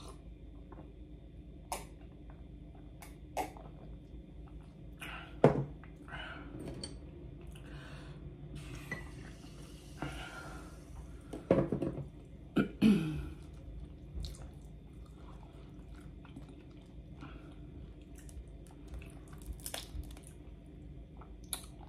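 Close-up eating sounds of boiled crawfish: scattered wet clicks, sips and smacks as the shells are pulled apart and the meat eaten. There are a few louder smacks about five, eleven and thirteen seconds in.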